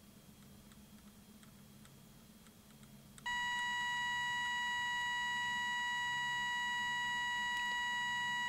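Audible threshold alarm of a Soviet 1969 'Signal' pocket radiometer-alarm switching on about three seconds in, as a steady, unbroken electronic tone. It sounds once the threshold regulator is turned down to the dose rate from the radioactive source: the set threshold is exceeded. Before it there are only a few faint ticks.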